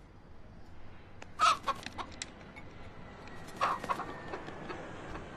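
Broiler rooster clucking: a sharp call about a second and a half in, followed by a few shorter clucks, then another call with a couple of short clucks near the four-second mark.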